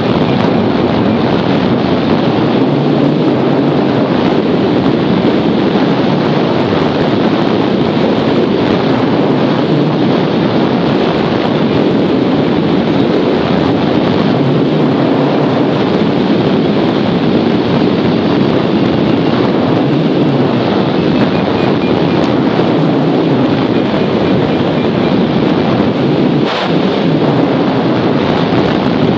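Steady rushing wind noise from the airflow of a hang glider in flight, buffeting the glider-mounted camera's microphone.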